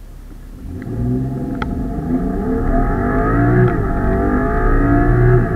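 BMW 335i F30's turbocharged inline-six with an M Performance Akrapovič exhaust, heard from inside the cabin, pulling away and accelerating hard. The engine note climbs steadily in pitch and loudness and drops back at each of two upshifts.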